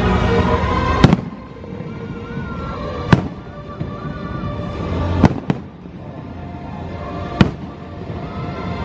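Firework shells bursting: five sharp booms spaced about two seconds apart, two of them close together in the middle. The first, about a second in, is the loudest. Show music plays under them throughout.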